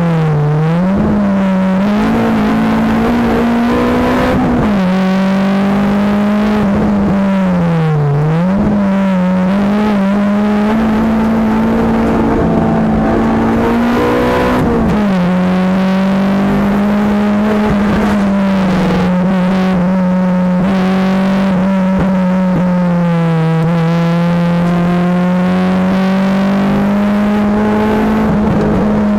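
Honda Accord Type R's 2.2-litre VTEC four-cylinder engine running hard at high revs, heard from inside the cabin on a track lap. The engine note dips and picks back up about a second in and again around eight seconds, then settles slightly lower and holds steady from about halfway.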